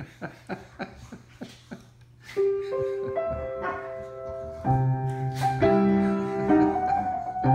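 Acoustic piano being played: a few soft, sparse notes, then a slow single-line melody from about two seconds in, with fuller chords and a bass line coming in about halfway through.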